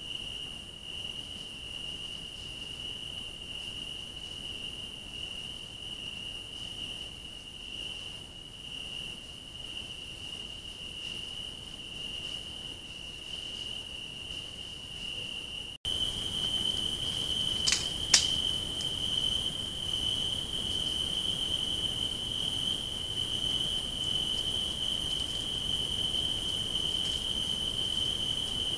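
Steady high-pitched electronic whine from a trail camera's circuitry, one unbroken tone over a faint hiss. About halfway through the recording cuts to another clip, where the whine sits slightly higher and the hiss is louder, and two sharp clicks follow shortly after.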